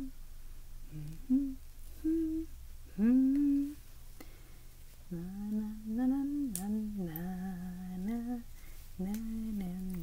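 A child humming a wordless tune. It starts with short separate notes, has a rising swooping note about three seconds in, then longer held notes that dip and rise.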